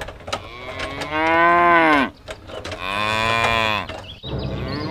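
Cows mooing: two long moos about a second each, with a third starting just before the end, after a few faint clicks.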